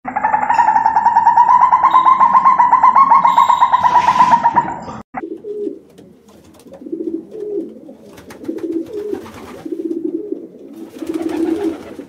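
A loud, rapidly pulsing trill held at one steady pitch stops abruptly about five seconds in. Rock pigeons then coo softly, a run of low, repeated coos.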